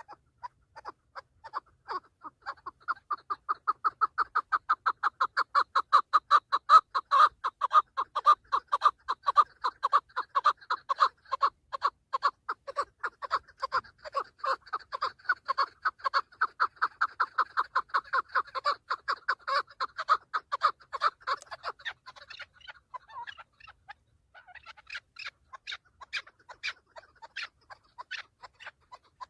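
Chukar partridge calling: a long, rhythmic run of rapid clucks, several a second, that swells over the first few seconds and breaks off about twenty seconds in. It is followed by a looser, softer series of clucks.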